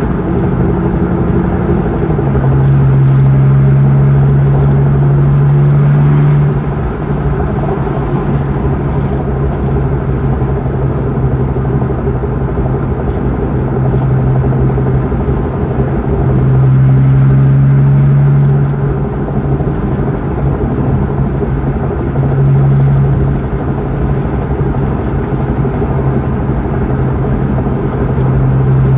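Car cabin noise while driving at motorway speed: a steady low drone of tyres and engine with road rush. The drone swells louder for a few seconds at a time, about three seconds in, again around seventeen seconds, briefly near twenty-three seconds and at the end.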